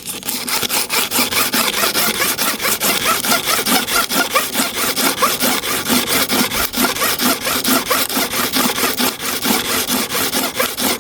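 Hair clipper blade rubbed back and forth on smooth sandpaper in quick, even strokes, several a second: the blade face is being lapped flat to take out a worn dip before sharpening.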